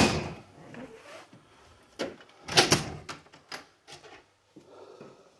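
A door thudding shut, followed about two and a half seconds later by another cluster of knocks and then a few light clicks.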